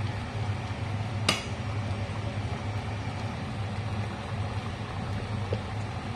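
A steady low hum, with one sharp click about a second in: a wooden spatula knocking against a stainless steel cooking pot.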